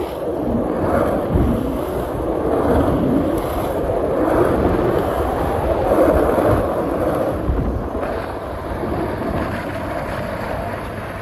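Wind rushing on the microphone outdoors: a steady noise that swells and fades about once a second.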